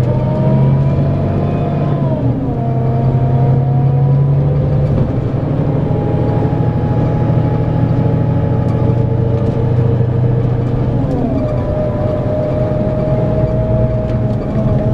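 Scania K410EB6 coach's 13-litre six-cylinder diesel pulling under load with a whine. Its pitch falls sharply twice, about two seconds in and about eleven seconds in, as it changes up a gear.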